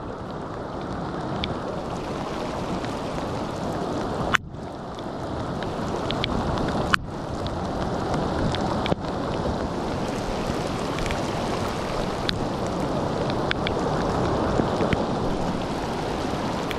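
Steady rushing of a river's current, a full even noise with no pitch. It breaks off for an instant with a sharp click about four and a half, seven and nine seconds in.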